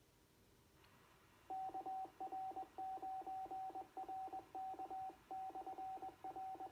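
Morse code sent as a keyed tone over an FM amateur radio channel, beginning about a second and a half in after the channel opens with a rise in hiss: long and short beeps on one steady pitch, typical of a repeater's automatic call-sign identification.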